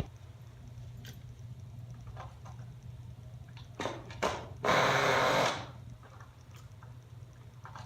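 Pull-start attempts on a 1/16 nitro RC engine: two short rasping pulls about four seconds in, then a longer, louder one, over a low steady hum. The engine does not settle into running.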